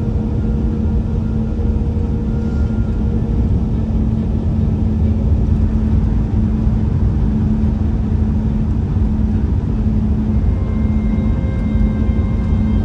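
Steady road and tyre rumble of a car cruising at highway speed, heard from inside the cabin, with a steady low hum.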